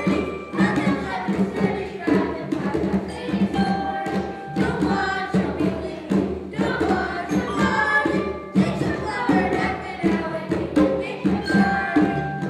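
A song: voices singing together over music with percussion.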